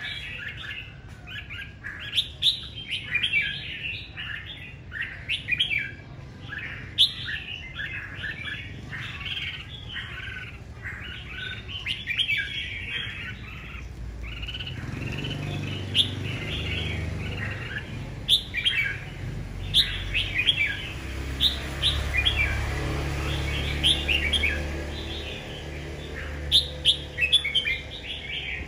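Caged red-whiskered bulbul singing: a string of short, quick chirping phrases repeated again and again. A low rumble comes in underneath about halfway through.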